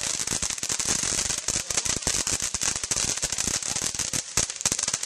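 Consumer fireworks crackling: a dense, unbroken run of sharp pops, many a second, over a steady hiss.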